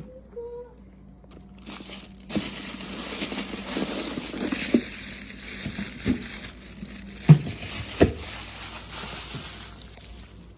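Rustling, crinkling handling noise with a few sharp knocks, starting about two seconds in and fading toward the end.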